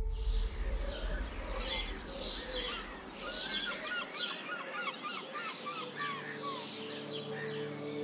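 Birds chirping and singing, with a quick run of repeated notes about three to four seconds in. A low musical drone fades out in the first half, and soft sustained music notes come back near the end.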